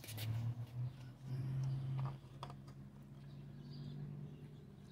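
A low, steady engine hum, wavering in loudness for the first two seconds and then evening out, with a few light clicks and taps from a glass and funnel handled against a motorcycle cylinder head about two seconds in.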